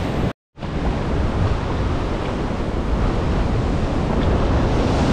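Ocean waves breaking and washing in, a steady rush of surf with wind on the microphone. The sound drops out completely for a split second just under half a second in.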